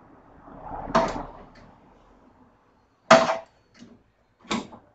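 Knocks and clatter of parts and hands working inside a welding machine's sheet-metal housing: three sharp knocks about a second apart, the loudest about three seconds in, with a small tap between the last two.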